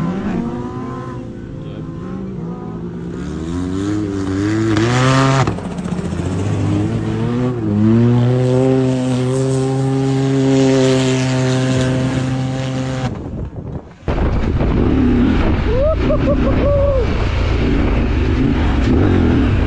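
Side-by-side UTV engine revving on a sand dune, its pitch rising and falling, then held steady at high revs until it stops abruptly about 13 seconds in. After that comes a steady low rumble.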